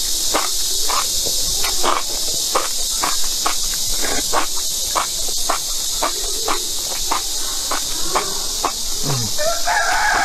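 Close-up mukbang eating of chili-oil-soaked enoki mushrooms: a quick run of wet slurps and mouth smacks, about two to three a second. Behind it, a loud, steady, high-pitched chorus of insects.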